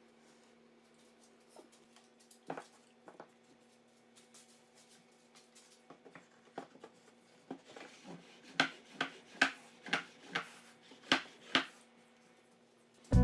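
Light clicks and knocks over a faint steady hum, ending in a run of about seven sharper knocks, roughly two a second, in the second half.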